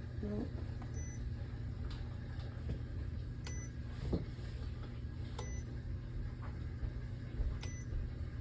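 A coffeemaker's control-panel buttons being pressed: faint clicks every second or two, some with a short high beep, over a steady low hum.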